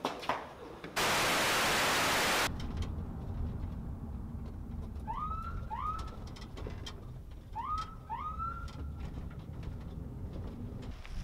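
Low rumble of a car driving, heard from inside the cabin. About a second in, a loud burst of hiss lasts about a second and a half. Later come two pairs of short chirps that rise in pitch and then level off.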